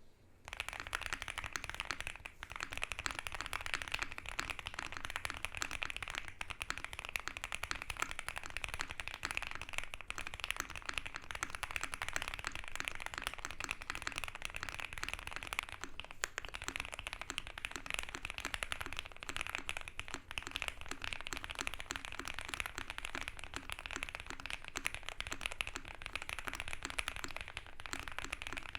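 Continuous fast typing on an OwLabs x Mr. Suit TKL custom mechanical keyboard with a polycarbonate plate, foam-filled case and GMK keycaps, a dense run of key clacks that starts about half a second in. The switches are Tangies v2 at first, then Milky Yellow Pros after a brief pause about sixteen seconds in.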